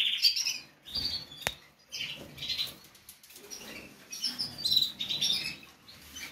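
Caged canaries giving short scattered chirps, with bursts of wing flapping as birds flit between perches, and one sharp click about a second and a half in.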